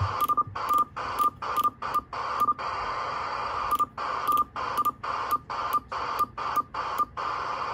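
Uniden Bearcat 680 CB radio hissing with receiver static from its speaker, the hiss cut by a brief drop-out and a short beep each time the channel knob clicks to a new channel, two or three a second with a pause of about a second midway. The static shows the once-dead receive section working.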